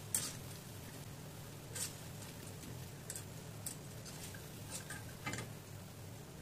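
Urad dal vadas deep-frying in hot oil while a wire spider skimmer lifts them out: scattered short crackles and clicks over a steady low hum, the sharpest right at the start.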